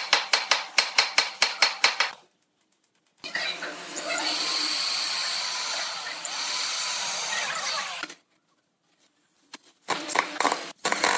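Rapid even knocking, about six a second, for the first two seconds. Then a corded electric drill runs for about five seconds, boring a hole through a wooden disc, its pitch dipping and rising as it cuts. Near the end an impact driver hammers a screw into the wood.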